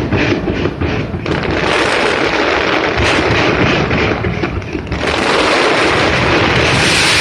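Fireworks going off, with rapid cracks and bangs in the first second. About five seconds in, they thicken into a louder, dense barrage.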